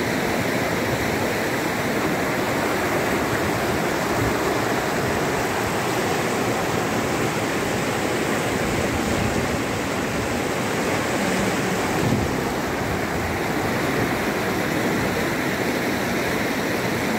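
Swift, shallow rocky river running in rapids over boulders and stones: a steady, unbroken rush of white water from a strong current.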